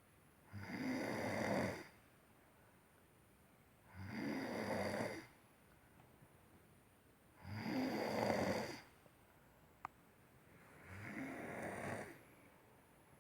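A person snoring in sleep: four snores, each lasting about a second, coming roughly every three and a half seconds, with one faint click between the third and fourth.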